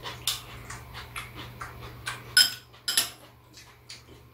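Metal chopsticks and spoons clicking and clinking against bowls and dishes during a meal, a string of sharp irregular clicks with the loudest pair about two and a half and three seconds in.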